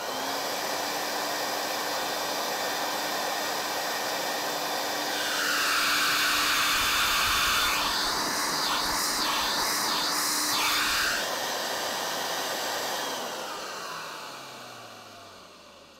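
Hoover Aquamaster S4470 vacuum motor running with a steady whine and rush of air. From about five to eleven seconds in it runs louder, with four brief pulses in the sound. It is then switched off and winds down with a falling pitch, fading out.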